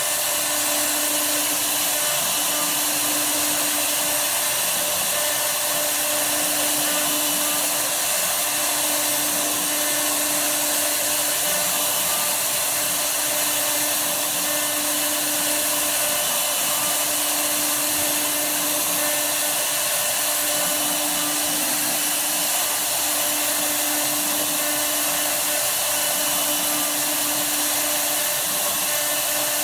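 CNC router running steadily with a high whine and hiss from the spindle, and a lower hum that starts and stops every couple of seconds as the axes move.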